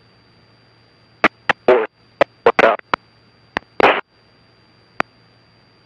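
Aircraft radio and intercom audio: a low hiss and hum broken by a cluster of sharp clicks and short crackling bursts of radio noise from about one to four seconds in, with one more click near the end.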